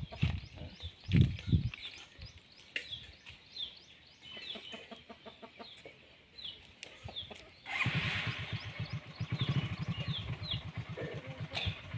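Birds chirping, short falling calls repeated over and over, with a few low thumps in the first two seconds. About eight seconds in, a small engine starts up and keeps running with an even, low pulsing beat.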